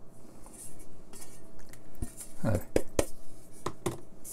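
Several sharp metallic clinks and knocks in the second half, from metal lamp parts and the heavy metal base plate being handled and set down on a workbench mat.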